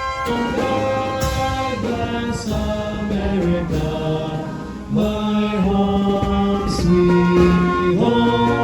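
Music: a slow melody of long held notes, with several parts moving together, changing pitch every half second to a second.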